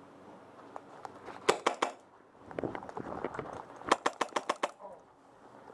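Two bursts of airsoft rifle fire from an HPA-powered rifle: a quick string of about four sharp shots around one and a half seconds in, then about eight rapid shots a little before the end. Rustling of gear and movement comes between the bursts.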